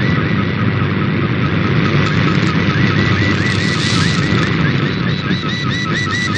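Shortwave digital image transmission (Fldigi MFSK picture mode) received over the air: a warbling tone near the middle of the audio band, repeating about four times a second as picture lines are sent, buried in heavy static and local interference.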